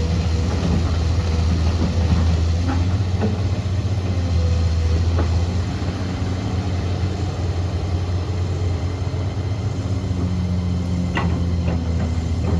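Diesel engine of a heavy earthmoving machine running steadily with a low drone. A few short metallic clanks come through about 3, 5 and 11 seconds in.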